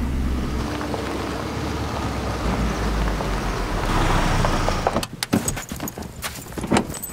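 Subaru car driving, a steady engine and road rumble. About five seconds in, the rumble drops away and gives way to a string of short, sharp clicks and crunches.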